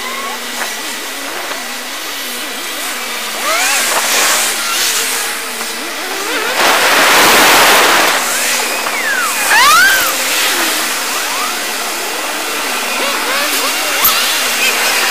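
Car engine and road noise heard from inside a moving car through a small action camera's microphone. The engine's pitch rises and falls several times as the car speeds up and slows in traffic, with a louder rush of noise about seven seconds in.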